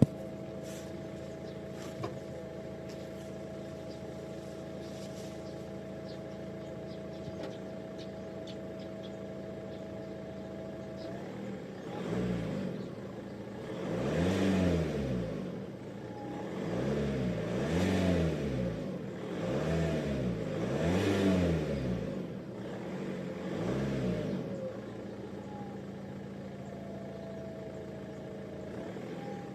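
Volkswagen Passat B5.5's 1.9 TDI (AWX) four-cylinder turbodiesel on the stock exhaust, idling steadily. About twelve seconds in, it is blipped once lightly, then free-revved four times, each rev rising and falling back. It returns to idle near the end.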